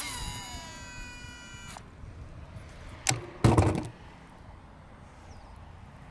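Baitcasting reel's spool spinning with a high whirring whine during a cast, some tones sliding down as it slows, cut off abruptly at just under 2 seconds. A click and then a cluster of sharp knocks, the loudest sounds, follow around 3 to 4 seconds in as the reel is handled.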